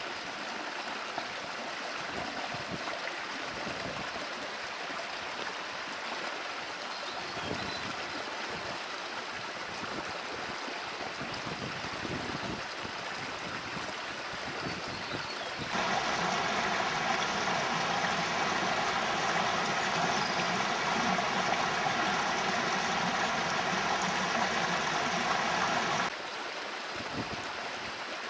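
Steady rushing water, like a stream. From about sixteen seconds in it is louder and brighter for about ten seconds, then drops back suddenly.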